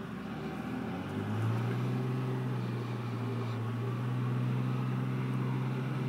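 Dodge Ram dually pickup's engine pulling under load as the truck climbs out of a steep ditch. It revs up about a second in, then holds a steady pitch.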